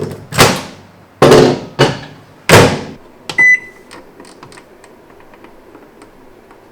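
Microwave oven being loaded and started: a few loud clunks, a single short beep from the keypad about three and a half seconds in, then the oven running with a faint steady hum.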